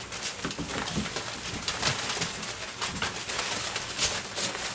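Doberman puppies scrambling through wood-shaving bedding after a flirt pole lure: constant rustling and scratching of paws in the shavings, with a few short low puppy growls in the first two seconds.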